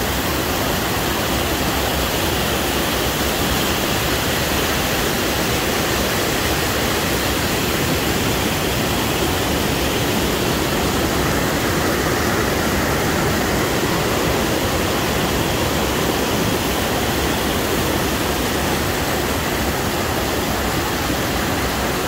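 Whitewater of a rocky mountain stream rushing over boulders below a waterfall: a loud, steady rush of water close by.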